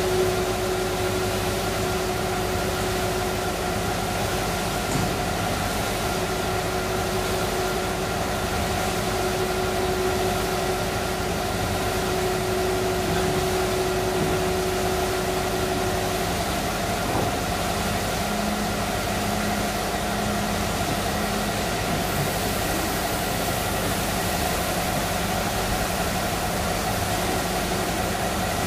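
Large auto-feeding CO2 laser cutting machine running: a steady machine hum and hiss with several steady tones, one of which stops about 16 seconds in.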